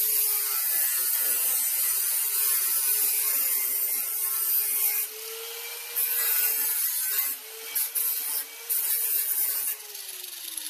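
Corded angle grinder with a flap disc grinding rusty sheet steel on a VW bus apron, its motor whining steadily under a loud grinding hiss that eases off briefly a few times as the disc comes off the metal. Near the end the grinder is lifted clear and its whine falls as it spins down.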